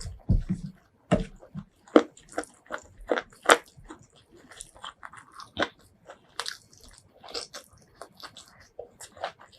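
Close-miked mukbang eating of chicken leg curry, rice and mango salad: irregular crunchy bites and chewing, with a few sharper, louder bites about 2 and 3.5 seconds in.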